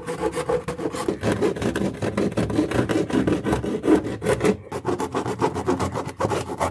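A bare hacksaw blade, held by hand without its frame, sawing back and forth through a plaster of Paris scenery shell laid over paper towel and cardboard lattice: quick, rough scraping strokes, one after another, with a short break a little over halfway.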